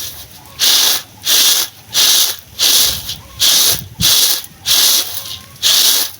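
Shelled groundnuts being winnowed, tossed on a winnowing tray in an even rhythm of rattling, swishing strokes, about two a second, to blow off their loose red skins.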